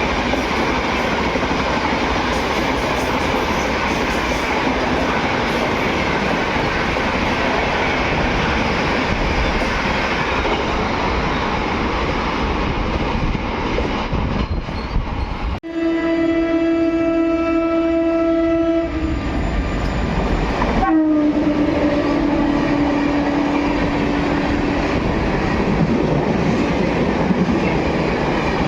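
Indian Railways train running past on the track, with steady wheel and coach noise. After a sudden cut about 16 s in, a locomotive horn sounds one steady blast of about three seconds, and after another cut a second, slightly lower horn blast of about four seconds sounds over the running train.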